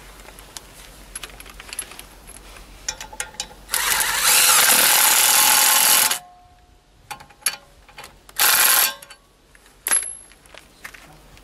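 Power tool, taken for an impact wrench, run in two loud bursts: a long one of about two seconds and a short one near the end. Sharp metal clinks come in between.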